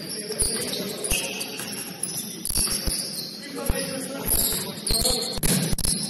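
Basketball game on a gym floor: sneakers squeaking in short high chirps and a basketball bouncing in irregular thuds.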